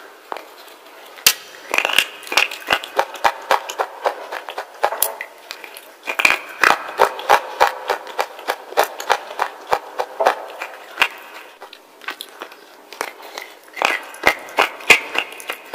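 Wet slate pieces being bitten and chewed, in quick runs of sharp crunches with short pauses between.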